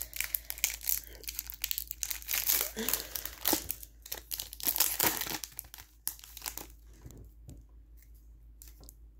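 A foil Pokémon card booster pack crinkling as it is handled and torn open, with dense crackling for the first several seconds, then fainter rustles and clicks as the cards come out.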